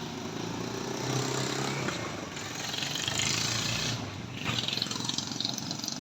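A small engine running steadily under a wash of outdoor noise.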